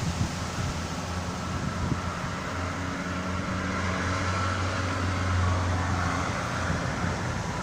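Strong wind blowing, with a low droning hum that swells through the middle and fades near the end.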